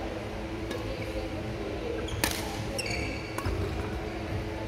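Badminton rally on a wooden indoor court: a racket hits the shuttlecock with one sharp smack a little over two seconds in, with a few lighter hits and short squeaks of court shoes on the floor around it.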